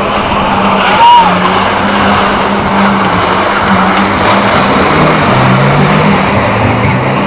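Engines of banger-racing cars running around the oval, heard over crowd noise. A brief high squeal comes about a second in, and the engine notes rise and fall near the end as the cars change speed.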